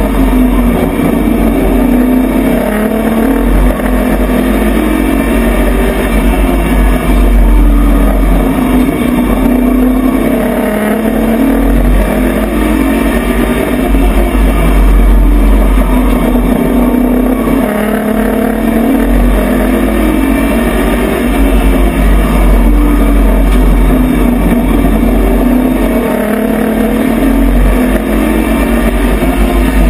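A race truck's engine heard from inside its cab under racing load. Its pitch rises and falls every several seconds as it accelerates and lifts around the oval, over a heavy rumble.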